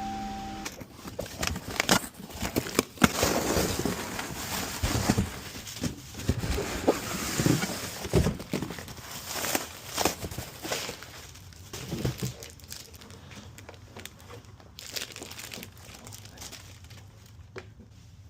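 Irregular rustling and crinkling with scattered sharp clicks and knocks, as of objects being handled, fading out over the last few seconds.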